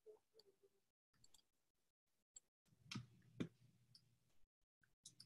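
Near silence broken by a few faint clicks, two of them close together about three seconds in.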